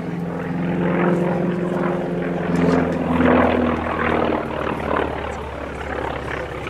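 North American T-28 Trojan's Wright R-1820 nine-cylinder radial engine and propeller running at high power in aerobatic flight. The engine note shifts lower about two and a half seconds in, with a deeper rumble building after that.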